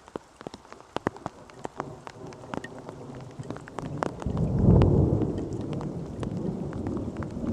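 Heavy raindrops hitting close to the microphone as scattered sharp taps, then a rolling rumble of thunder that swells about four seconds in and slowly dies away.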